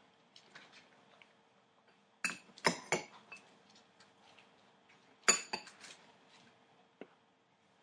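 Metal puppy food bowls clinking as puppies knock against them, in two short clusters of clinks: one a little over two seconds in, the other just past five seconds.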